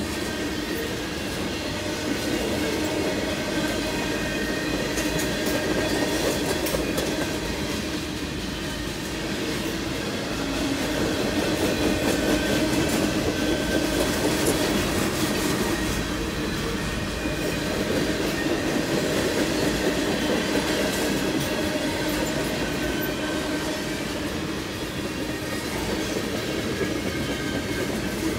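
CSX freight train cars rolling past: a steady rumble and clatter of steel wheels on the rails, with a faint high wheel squeal running over it.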